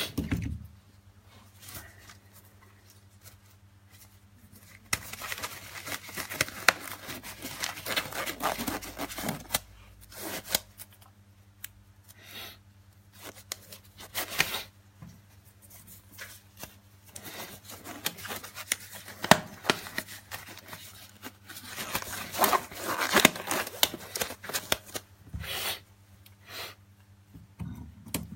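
Small hand tools prying, scraping and clicking against the parts of a Samsung Galaxy A520 smartphone being taken apart, as a stubborn SIM/SD card part is worked at: two long stretches of scraping with scattered sharp clicks between. A steady low electrical hum runs underneath.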